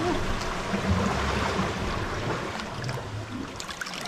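Steady rush of sea water, with irregular low rumbles and a few faint ticks near the end.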